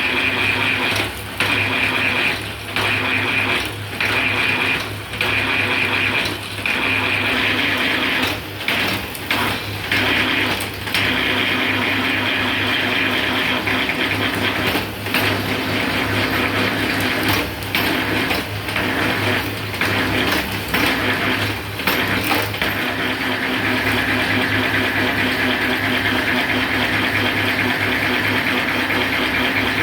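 Electric bamboo satay-skewer rounding machine running steadily, its loud hum dropping briefly many times over the first two-thirds, then running evenly.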